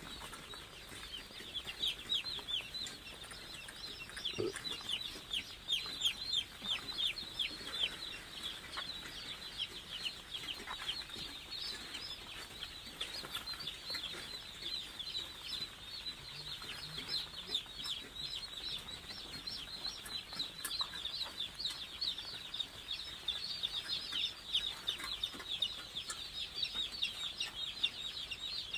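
A pen of hundreds of day-old chicks peeping together in a dense, continuous chorus of short, high, falling cheeps. The chicks are feeling the cold and huddling.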